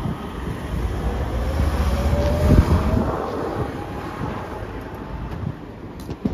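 A passing vehicle: a rumble that swells to a peak a couple of seconds in, with a faint whine rising slowly in pitch, then fading away.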